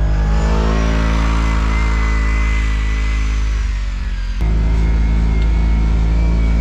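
Kawasaki KRX1000 UTV's parallel-twin engine running under load on snow tracks, with a steady high whine above it. About three and a half seconds in the engine note sags, then it jumps back up about a second later as the throttle is opened again.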